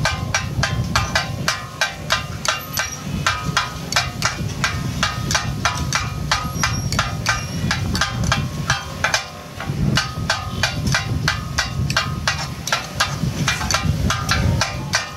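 Katakat chopping: two steel blades striking a flat iron griddle as goat brain and offal are minced, a fast metallic clatter of ringing clangs at about four strikes a second, with a short break about nine seconds in.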